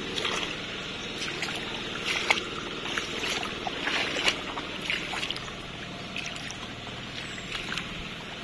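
Shallow water in a flooded rice paddy sloshing and trickling, with irregular short splashes that come less often in the second half.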